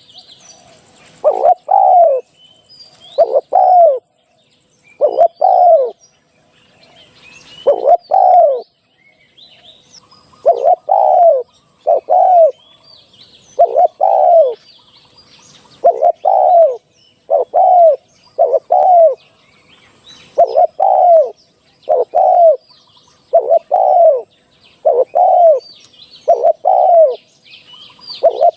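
A spotted dove cooing over and over: loud low coos, mostly in pairs, each note dipping in pitch, with a short gap between groups. Faint high chirps from small birds sound in the gaps.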